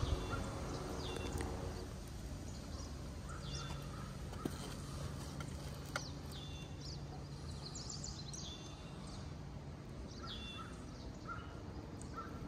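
Outdoor ambience with a small bird calling over and over, short high chirps every second or two, above a faint low hum.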